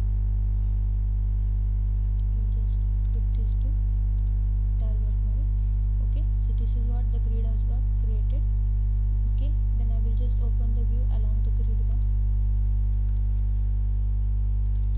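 Steady electrical mains hum, a low buzz with many overtones, picked up by the recording. Faint, irregular wavering sounds, too weak to identify, sit under it in the middle of the stretch.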